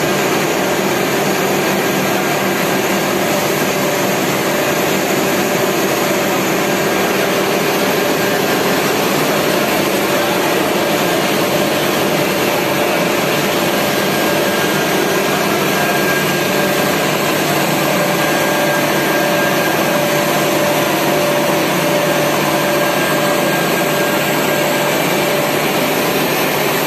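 Copper wire drawing machine running, its control board just repaired: a steady, even mechanical whir with a few faint steady hums at different pitches mixed in.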